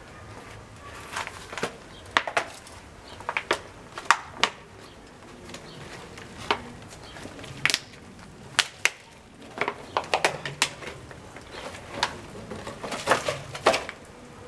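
Irregular crunching knocks and scrapes of a plant pot and dry soil being handled by hand, some coming in quick clusters.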